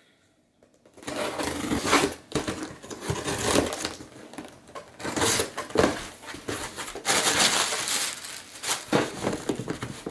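Packing tape torn and peeled off a cardboard shipping box, then the cardboard flaps pulled open, in uneven bursts of tearing and rustling that start about a second in.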